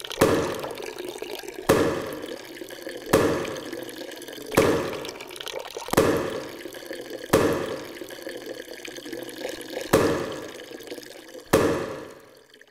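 Wet laundry being beaten by hand against a hard surface, a sharp splashy slap about every one and a half seconds, with water running between the strokes. The slaps fade out near the end.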